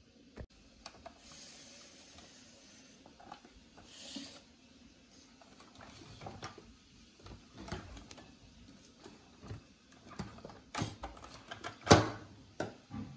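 Handling noises from a model snowmobile's plastic skis and ski mounts: scattered clicks, taps and brief rubbing as the 3D-printed skis are handled, with one sharp clack near the end as the loudest sound.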